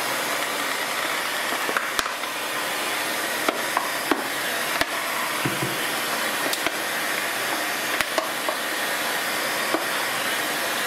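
Stanley electric heat gun running steadily, a constant rush of blown hot air, as it shrinks a plastic bottle onto a balsa canopy plug. A few faint clicks from handling the plastic.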